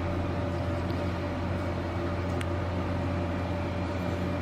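Steady low hum with no change in pitch, and a single faint click about two and a half seconds in.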